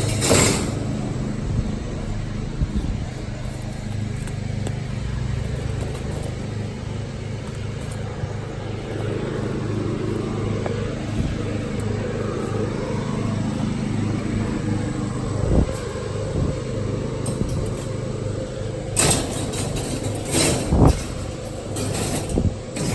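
A vehicle engine running steadily with a low hum, with a few sharp knocks and clatters near the end.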